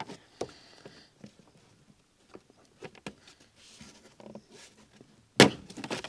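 Nissan Micra's plastic footwell kick-panel trim being pried loose: scattered light clicks and taps, then one sharp crack about five seconds in as a retaining clip pops free.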